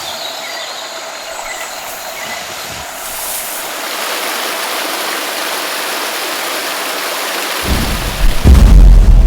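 Steady hiss of heavy rain, growing a little louder about four seconds in, then a loud low rumble of thunder near the end.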